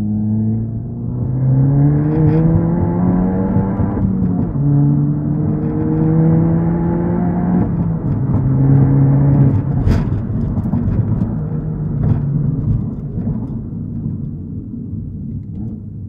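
Volkswagen Golf GTI MK8's 2.0-litre turbocharged four-cylinder and exhaust accelerating through the gears. The revs rise, drop at an upshift about four seconds in, climb again and drop at another shift about eight seconds in. There is a sharp crack about ten seconds in, and then the engine note eases off and fades.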